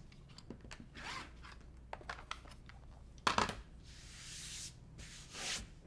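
A 45 mm rotary cutter rolling through quilting cotton along an acrylic ruler on a cutting mat, trimming off seam dog ears in short scraping strokes. A sharp knock comes a little over three seconds in, followed by soft rubbing as a hand sweeps across the fabric.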